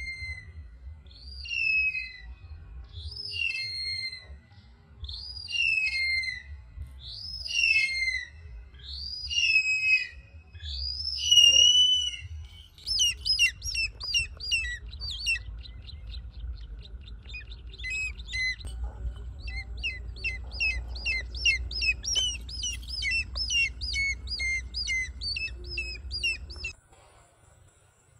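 A bird calling: a series of shrill whistled calls, each sliding up and then down, about one every two seconds. About twelve seconds in, it changes to a faster run of short calls, three or four a second, over a low rumble of wind on the microphone that stops shortly before the end.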